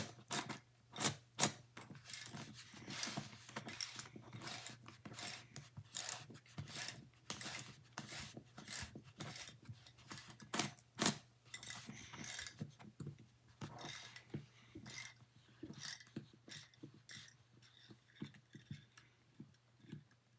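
Screwdriver working the center screw out of a plastic Rubik's cube: irregular small clicks, ticks and scrapes of metal on screw and plastic, with a few sharper knocks about a second in and again around the middle.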